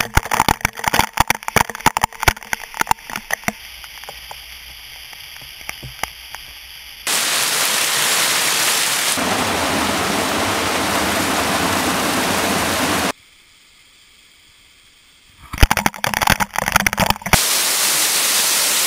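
Water from a waterfall spattering on a GoPro's waterproof housing held in the falling spray: dense crackling hits. After abrupt cuts, the steady loud rush of the waterfall, broken once by a brief quiet gap and another short burst of spattering.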